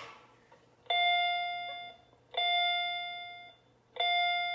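Elevator chime from a salvaged elevator button panel: three identical single dings of the same pitch, about a second and a half apart, each ringing and fading away.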